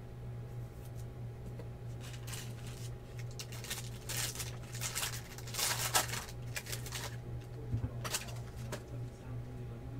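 Foil trading-card pack wrappers crinkling and rustling as they are handled, with a few sharp crackles about eight seconds in, over a steady low hum.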